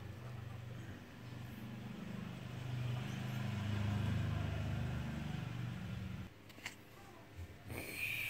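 A low, steady droning hum, like a motor running, that grows louder a few seconds in and cuts off suddenly about six seconds in.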